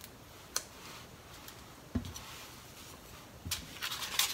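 Quiet handling sounds: a few soft clicks and a light knock as a mustard packet is squeezed over natto in its foam container. Near the end comes a quick run of clicks as wooden chopsticks start stirring the natto against the container.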